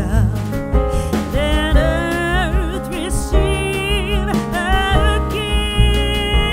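Background music: a song with a singing voice over instruments and a strong bass line.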